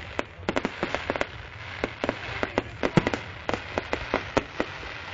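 Fireworks going off: a rapid, irregular series of sharp cracks and pops, the loudest about three seconds in.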